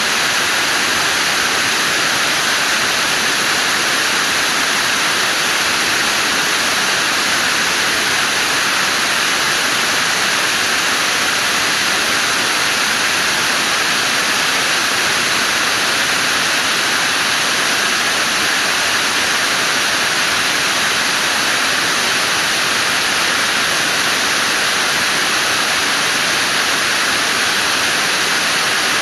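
Waterfall: falling water making a loud, steady rush.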